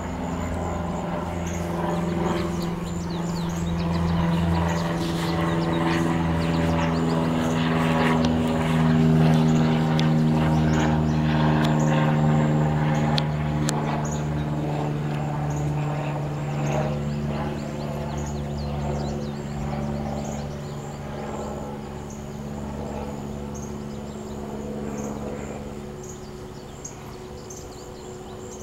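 A distant engine drones past, growing louder toward the middle and then fading, its pitch sinking slowly.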